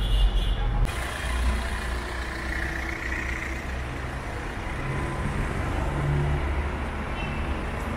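City street traffic: car and minibus engines running and tyres on the road in a steady hum, with a lower engine note swelling about five to six seconds in.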